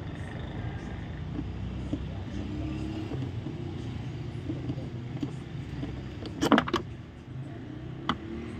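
Metal Torx screwdriver working a screw in a plastic door trim panel: a quick cluster of sharp clicks about six and a half seconds in and one more click near the end, over a steady low background rumble.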